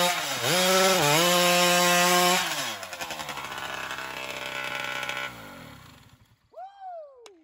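Race chainsaw powered by a Honda CR250 two-stroke dirt-bike engine bored to 325 cc, screaming at full revs through a log and dipping in pitch twice as the chain bites. About two and a half seconds in it comes off the wood, and its pitch slides steadily down as it winds down and dies out around six seconds in. The owner judges the engine still jetted a little lean.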